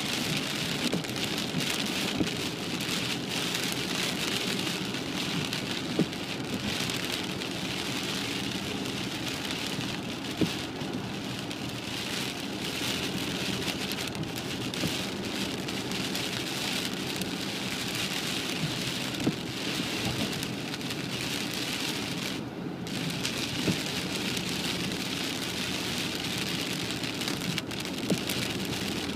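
Heavy rain hitting a car's roof and windscreen, heard from inside the cabin: a dense, steady hiss with a sharper tap now and then. The low hum of the moving car runs underneath.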